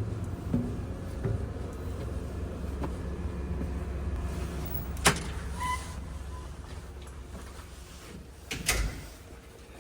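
Car running with a steady low rumble that fades toward the end. About halfway there is a sharp click followed by a short beep, and near the end a heavy thump like a car door shutting.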